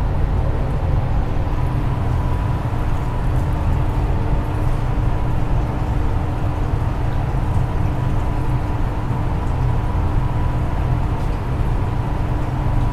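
Steady low hum of running aquarium equipment, such as filters and air pumps, with a faint constant whine above it.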